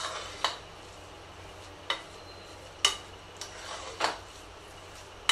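A spoon mashing soft cooked rice in an aluminium pressure cooker: about four sharp clinks of the spoon against the pot, with a few softer taps between them.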